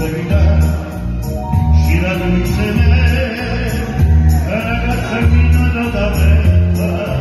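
Live band music played through PA speakers: a man singing into a microphone over drums with a steady beat of about two pulses a second. The singing voice comes in strongly about two seconds in.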